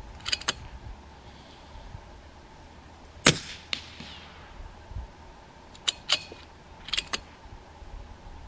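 A single shot from a small-bore (.22 rimfire) rifle about three seconds in, a sharp crack with a short ringing tail. Several lighter metallic clicks follow in pairs, the rifle's bolt being worked for the next round.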